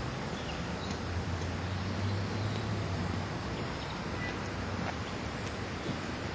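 Outdoor road-traffic ambience: a steady wash of noise with a low vehicle hum that swells about a second in and eases off after about three seconds.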